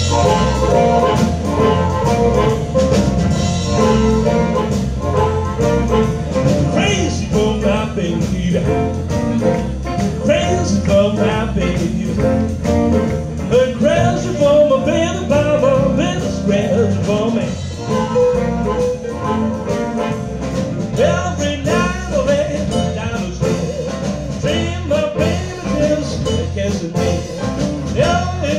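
Live blues band playing: electric guitars, piano, electric bass and drum kit, with an amplified harmonica lead.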